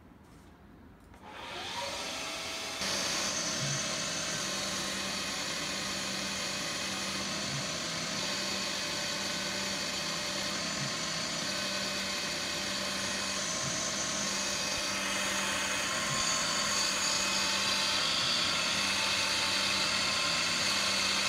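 Hercus PC200 CNC lathe starting up: the spindle motor spins up with a rising whine about a second and a half in, then runs steadily with a mechanical whine while a left-hand turning tool cuts the aluminium ball handle.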